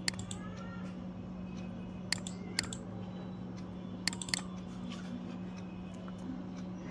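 Computer mouse clicking: a few sharp clicks, several in quick pairs, in three small groups, over a steady low hum.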